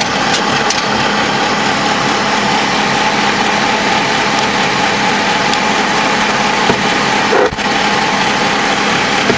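LAV III armoured vehicle's diesel engine and drivetrain running steadily under way, heard from inside the hull as a loud, even drone with a steady hum. The noise dips briefly about three quarters of the way through.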